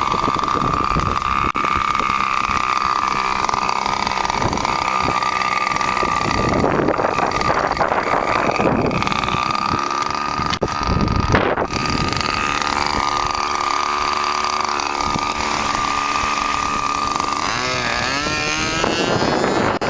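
Engine of a QHOR 40 radio-control model airplane running at high revs with a steady high-pitched whine. Near the end the pitch wavers and slides as the plane passes.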